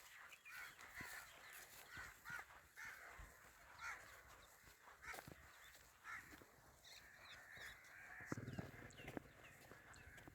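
Faint outdoor birdsong: many short bird calls and chirps overlapping, with a lower-pitched call about eight seconds in.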